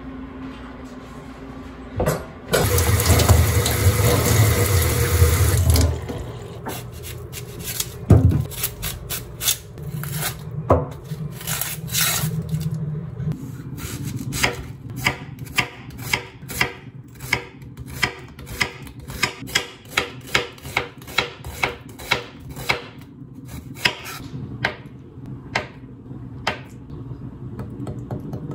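Santoku knife chopping an onion on a wooden cutting board: a long run of sharp knocks of the blade striking the board, about two a second. Before the chopping starts, a few seconds of loud steady rushing noise.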